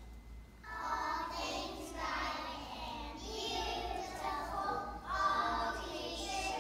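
A group of young children singing together, starting about a second in.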